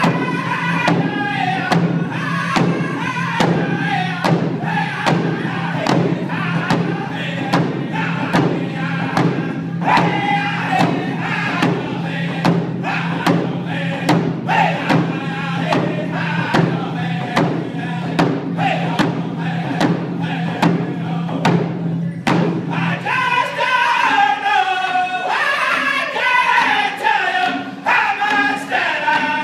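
A group of men singing together in unison while beating round frame hand drums in a steady pulse. About three-quarters of the way through, the drumbeat thins out and the voices carry on, rising in pitch.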